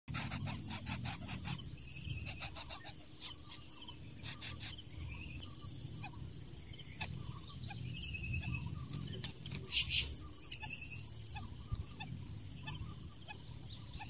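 Steady high-pitched drone of insects in the vegetation, with a low rumble underneath. A run of rapid clicks comes in the first second and a half, and a brief rustle about ten seconds in.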